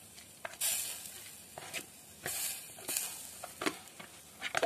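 Dry fruits tipped into a steel pan of gram flour (besan) frying in hot oil: sizzling in a few short spurts, with several sharp taps of the container or spoon on the pan.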